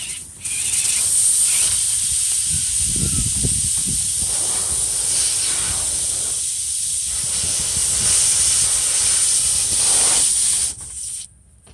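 Pressurised air hissing loudly and steadily, as from a punctured truck tyre, starting about half a second in and cutting off sharply near the end. Low knocks of tool handling sound under it partway through.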